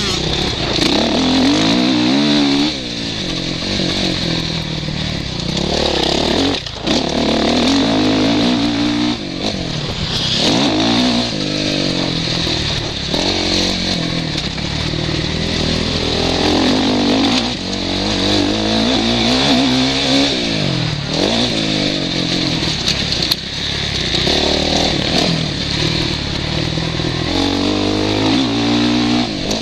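Suzuki RM-Z450 single-cylinder four-stroke motocross engine at full race pace, heard from a helmet camera. The engine pitch climbs and falls every few seconds as the throttle is opened and shut through the track's turns and jumps.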